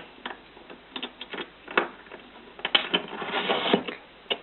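Small bench vise being set up and adjusted: irregular metal clicks and knocks, with a scraping stretch about three seconds in.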